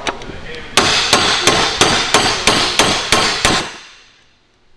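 Heavy hammer striking a steel plate clamped in a bench vise, about nine blows at roughly three a second, bending the plate cold. The blows stop a little over halfway through.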